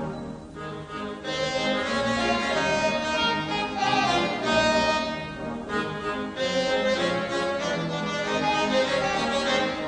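Background music played by strings, with violins carrying the tune.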